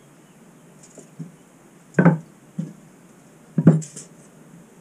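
Pine 2x3 table legs knocked together and set down on a wooden workbench: a few short wooden knocks, the two loudest about two seconds in and a second and a half later.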